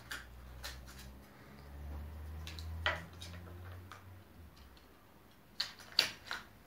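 Scattered light clicks and knocks from small toy cars being handled at the top of a wooden ramp, with a low rumble during the first four seconds and the sharpest clicks near the end.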